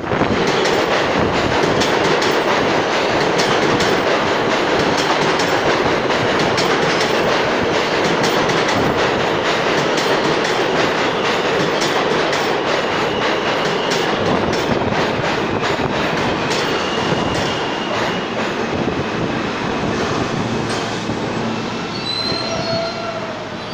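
R160A subway train running into the station, its wheels clicking rapidly over the rail joints under a steady rumble, with brief high wheel squeals. It slows and grows quieter over the last several seconds as it brakes, with a short squeal near the end as it comes to a stop.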